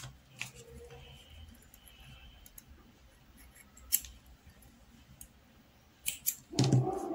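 Small spring-loaded thread snips clicking as they cut crochet cotton thread: a sharp click about four seconds in and two more close together near the end, over faint handling rustle.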